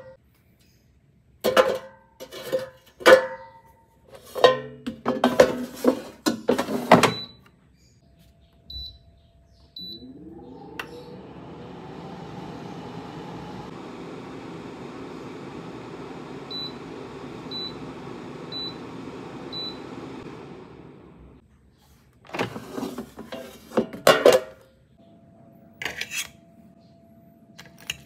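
Basket-type air fryer: sharp clatter of the basket and its contents being handled, and a few short high beeps from the control panel. About ten seconds in, the fan starts with a rising whine and then runs steadily for about ten seconds, with four evenly spaced beeps about a second apart partway through. The fan winds down and more clatter follows.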